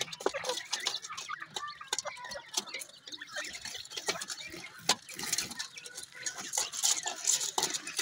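Grey francolin adults and chicks pecking and scratching in a shallow basin of dry soil and feed: many quick, irregular clicks and taps of beaks against the basin, with a scratchy rustle.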